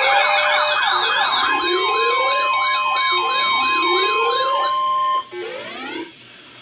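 Electronic emergency alert sound: several warbling and rising siren-like tones sounding together, joined about a second in by a steady single-pitch alert tone. It all cuts off about five seconds in, leaving a few short rising sweeps.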